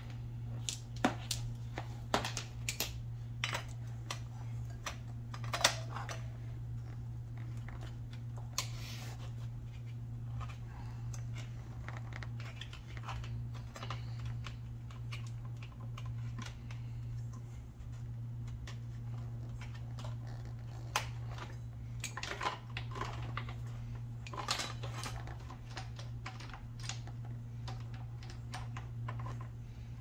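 New EK 3D 520 motorcycle drive chain clinking and rattling in scattered bursts of small metallic clicks as it is fed by hand over the rear sprocket, with a steady low hum underneath.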